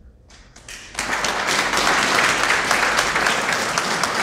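Audience applauding: a few scattered claps about half a second in, swelling into full, dense applause from about a second in.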